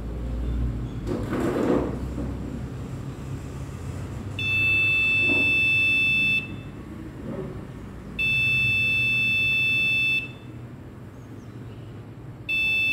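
Piezo buzzer on an Arduino smoke-alarm robot sounding three long, high-pitched steady beeps, the first two about two seconds each and the third starting near the end: the alarm going off as its gas sensor reading passes the smoke threshold. A low rumbling and rustling of handling noise lies underneath.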